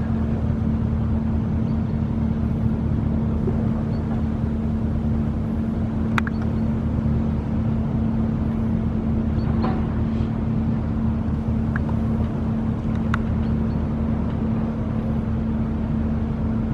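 A large engine running steadily: a constant low drone with a strong, unchanging hum, starting abruptly, with a few faint ticks now and then.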